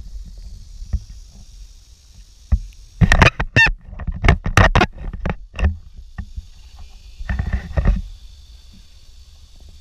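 Handling noise from an action camera being turned over and remounted: loud knocks, clicks and rubbing right at its microphone, in a dense cluster about three seconds in and a shorter one near the end.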